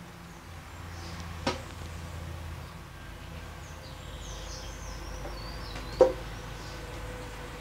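An empty plastic water bottle knocking against the floor: a light knock about a second and a half in, then a sharper, louder one about six seconds in as it drops from a baby's hands.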